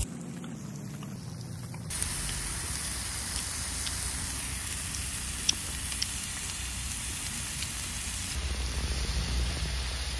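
Beef and kimchi sizzling on a cast-iron griddle plate: a steady hiss that grows louder about two seconds in, with two sharp clicks about halfway through.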